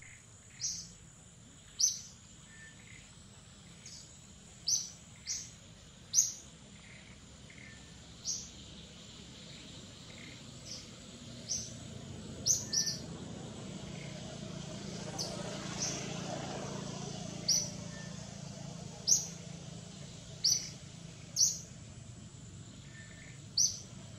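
A bird calling with short, high chirps, one every second or two, over a steady outdoor background. A low rumble swells in the middle and fades again.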